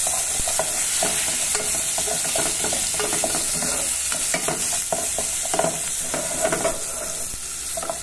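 Minced garlic sizzling in hot oil in an aluminium pot, with a black plastic spatula scraping and stirring it around the pot's bottom in many short strokes.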